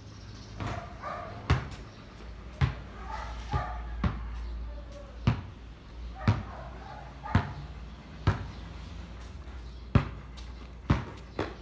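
Basketball bouncing on a concrete court as it is dribbled, about ten sharp slaps at roughly one a second.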